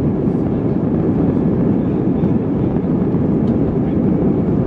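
Steady low rumble of an Airbus A320's IAE V2500 engines and airframe heard inside the cabin while the airliner rolls along the ground.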